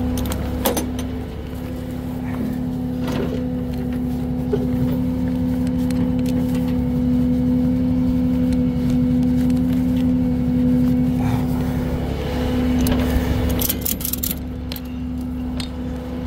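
Peterbilt rollback tow truck's diesel engine idling steadily with a constant low hum. Light metallic clinks of strap hooks and hardware come now and then, clustering near the end.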